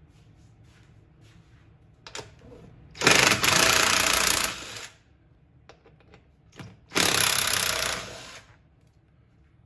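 Cordless power driver running in two bursts of about two seconds and a second and a half, backing out the 10 mm bolts that hold the snowblower's gas tank, with a few sharp clicks between.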